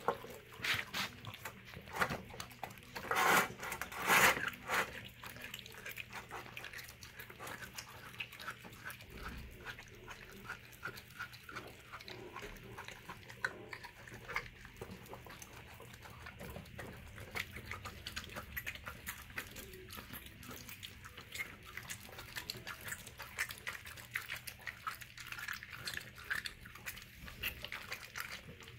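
A dog eating a raw sirloin steak from a metal bowl: a steady run of wet licking, chewing and smacking sounds, with a few louder noises about three to four seconds in.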